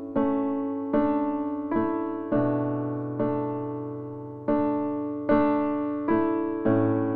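Slow, gentle piano background music: soft notes or chords struck about once a second, each left to ring and fade.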